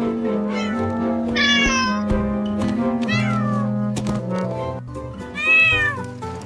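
Cat meowing several times over background music, with the loudest and most drawn-out meow near the end.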